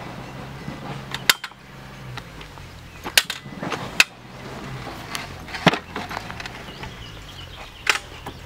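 Hand-operated interlocking stabilised soil block (ISSB) press being worked: several sharp knocks and clanks a second or two apart as its steel lever and mould are pressed down and opened to compress and release a block.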